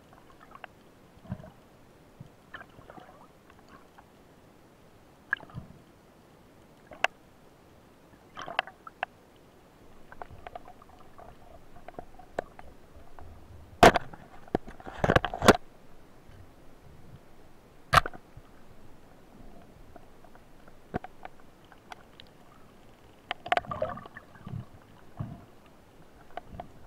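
Scattered underwater clicks and knocks from a freediver's gear, heard through an action camera's housing. The loudest come in a quick cluster about halfway through, when the camera swings past rock, then a single sharp knock a few seconds later and another group near the end.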